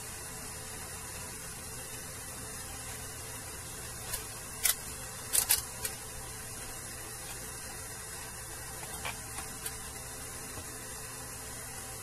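Sharp clicks of an analog multimeter being handled and its range selector turned, several about four to six seconds in and a few fainter ones near nine seconds. A steady hiss with a faint low hum runs underneath.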